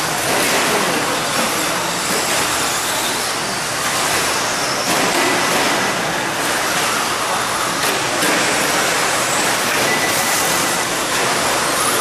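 Electric 2WD short-course RC trucks racing on a dirt track: a loud, steady hiss of motors and tyres, with a brief high whine about halfway and again near the end.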